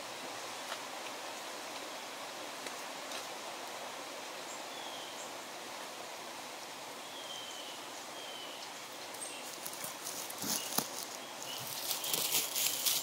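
Forest ambience: a steady rustle of leaves with a few faint, short bird chirps. Scattered light clicks of the recorder being handled on its stake, then from about ten seconds in, footsteps crunching through dry leaves and twigs on the forest floor as the man walks away.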